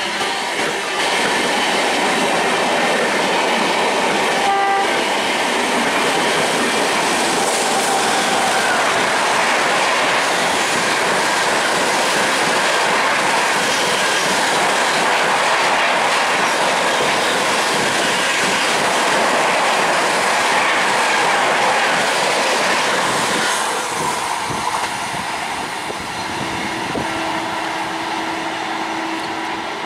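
Express trains of LHB passenger coaches running past at speed, a loud steady rush of wheel rumble and clatter on the rails, with a brief horn note about four and a half seconds in. The rush eases off about 24 s in, and near the end a WAP-7 electric locomotive's horn sounds one long steady note.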